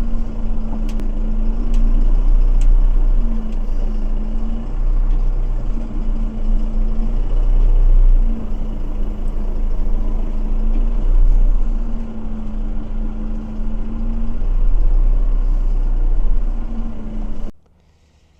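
Valtra N101 tractor's diesel engine running steadily, with a pitched hum that comes and goes every second or two. It cuts off abruptly near the end.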